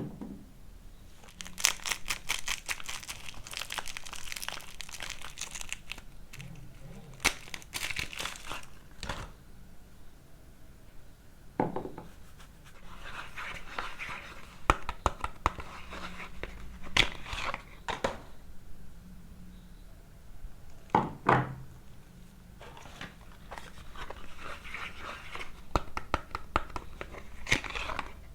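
Soap bars being unwrapped: wrapping crinkling and tearing in several bouts of dense crackling, with a couple of duller knocks in between.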